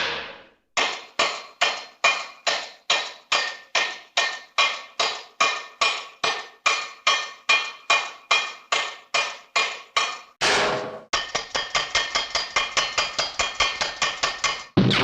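Old cartoon sound effect of a hammer striking metal over and over, each strike ringing briefly: about two and a half blows a second, a short noisy burst just after ten seconds, then a faster run of about seven blows a second.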